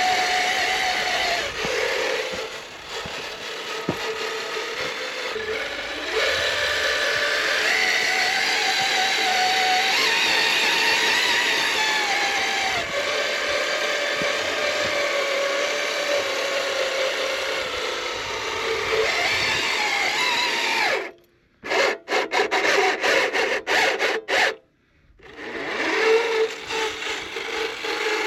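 Small electric motor and geartrain of a 1/10 scale RC rock crawler whining under throttle, its pitch rising and falling as it drives. Near the end it runs in several short stop-start bursts.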